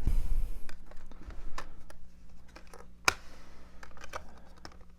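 Handling of a metal steelbook disc case: a brief rustle, then scattered light clicks and one sharp click about three seconds in.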